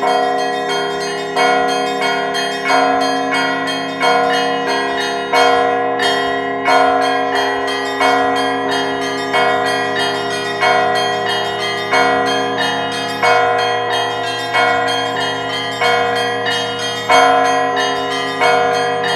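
Russian church bells rung by an automatic electronic bell-ringing system: several bells struck together in a repeating zvon pattern, a heavier stroke about every 1.3 seconds with quicker strokes of smaller bells between, their tones ringing on and overlapping.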